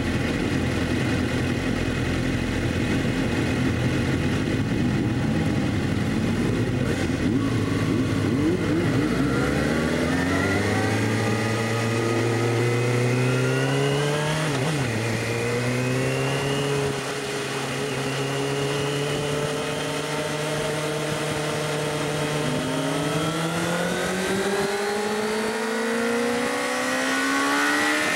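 Sport bike engine idling roughly, then pulling away and revving up, its pitch climbing, dropping sharply at a gear change about halfway through, holding steady at cruise, and climbing again near the end.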